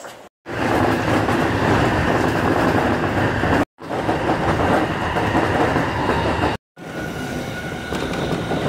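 Electric train running at speed, heard from inside the car: a steady rumble of wheels on rail with clickety-clack. It comes in three short pieces split by brief dead silences, and the last piece is quieter, with a faint steady whine.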